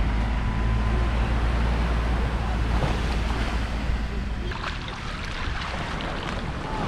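A vehicle engine idling with a steady low rumble against surf and wind. The engine sound stops abruptly about four and a half seconds in, leaving waves breaking and wind on the microphone.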